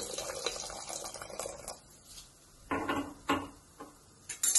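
Cornflour slurry poured in a thin stream from a mug into a steel pot of soup: a steady liquid splashing for about the first two seconds. Then a few short knocks and, near the end, sharp metallic clinks of utensils against the pot.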